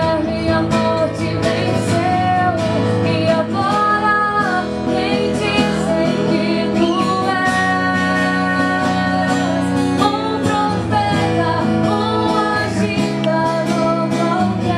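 A Portuguese-language Christian worship song: a singer holds long, wavering notes over a guitar accompaniment.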